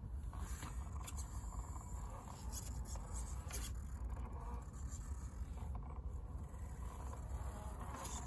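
RC crawler creeping down a crumbling sand gully: scattered small scrapes and clicks of tyres and chassis on sand, over an uneven low rumble of wind on the microphone.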